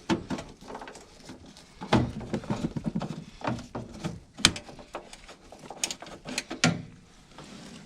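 Irregular clicks, knocks and rattles of parts and tools being handled during work on a furnace's inducer motor and flue pipe, with a denser run of rattling about two seconds in.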